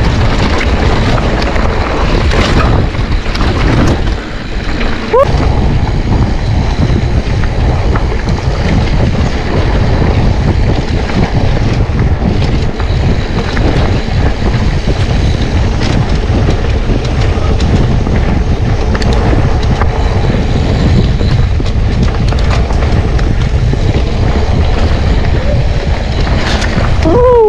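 Steady wind rush on the camera microphone mixed with the rumble and rattle of a mountain bike rolling fast over rough trail. A brief squeal comes near the end.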